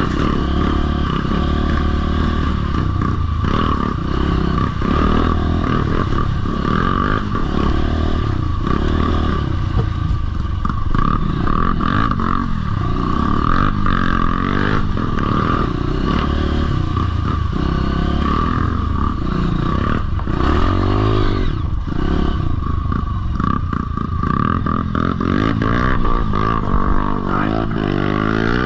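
Dirt bike engine being ridden, revving up and down continuously as the throttle is worked.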